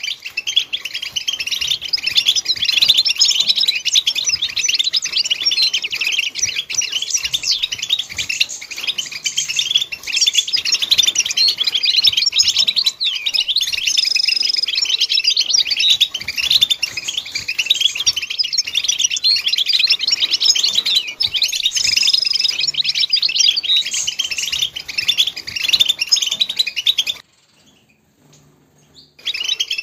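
European goldfinch song: rapid, continuous twittering and trilling chirps. The song cuts off for about two seconds near the end, then resumes.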